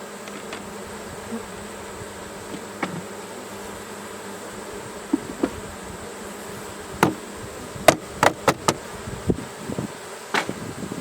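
Honeybees buzzing in a steady hum around an open hive while the remaining bees are shaken out of a box into it. From about halfway through, a series of sharp knocks.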